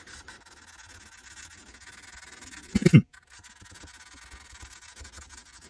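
Sandpaper backed by a file rubbing faintly in short strokes along the beveled aluminum edge of a shotgun receiver's loading port. A brief, louder sound cuts in about three seconds in.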